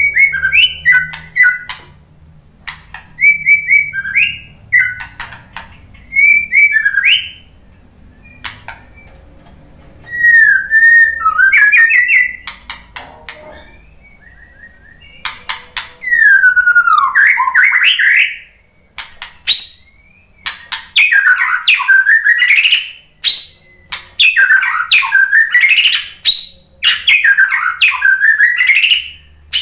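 White-rumped shama singing in loud bursts of varied, fast whistled phrases separated by short pauses. In the second half the phrases become a run of loud sweeping calls about every two seconds, with sharp clicks between them.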